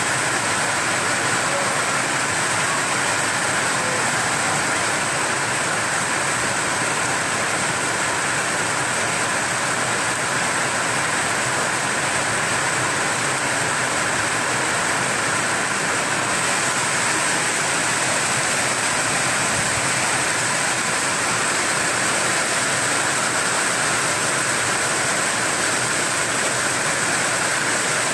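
Heavy rain falling steadily: an even, unbroken hiss with no single drops or thunder standing out.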